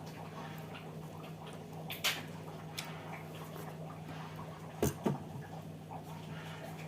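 A person eating: soft, crackly chewing and mouth noises, with sharp clicks once about two seconds in and twice in quick succession about five seconds in, over a steady low hum.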